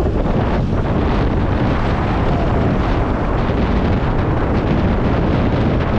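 Wind rushing and buffeting over the microphone of a moving scooter, a steady loud rumble with road noise underneath.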